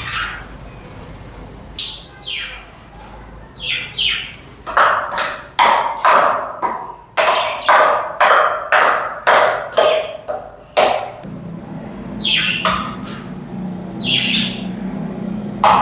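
Budgerigars calling: short chirps that drop in pitch, with a fast run of louder squawking calls, about two a second, in the middle.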